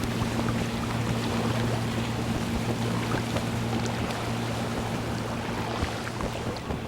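A boat engine hums steadily, a little weaker after about four seconds, over water splashing and lapping against the hull.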